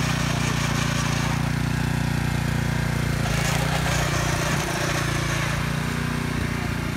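Small petrol engine of a walk-behind powered tiller running steadily at a constant pitch as its tines work through dry soil.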